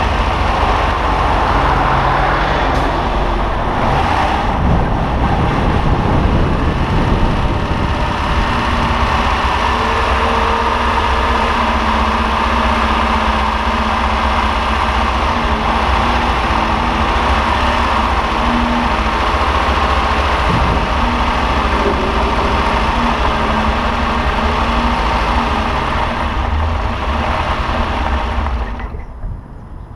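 The 1962 Ferrari 250 GT/E's freshly rebuilt three-litre V12 running as the car drives at low speed, heard from just above the open engine bay. Near the end the engine stops and the sound drops away sharply.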